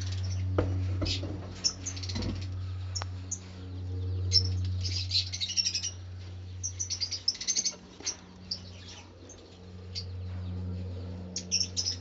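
Lovebirds chirping in short runs of high, rapid chirps, over a steady low hum. A few sharp knocks come in the first couple of seconds.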